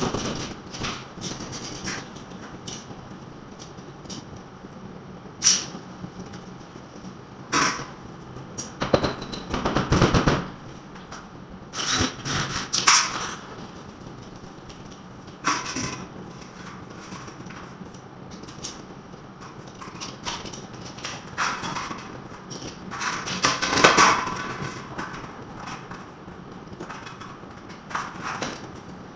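Wall repair work: tools knocking and scraping at irregular intervals, with sharp single knocks and short scraping bursts over a steady low background.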